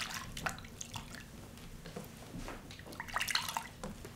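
A shaving brush worked in a bowl of lather, giving irregular wet squelches and clicks, with a denser flurry about three seconds in.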